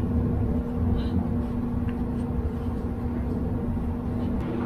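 Steady low machine hum with a constant drone, with a few faint metallic clicks of the exhaust manifold being handled against the engine.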